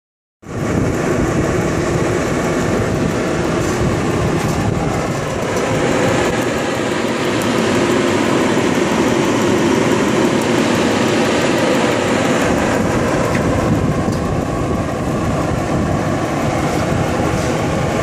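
Dyna-Glo Delux RMC-FA60DGD propane forced-air torpedo heater running: a steady, even rush of its fan and propane burner.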